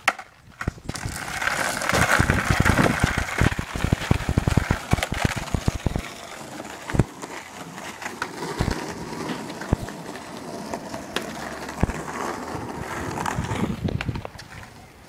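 Skateboard rolling on hard ground, its wheels rumbling with many rapid clicks and knocks for the first several seconds, then rolling more quietly with a few single knocks.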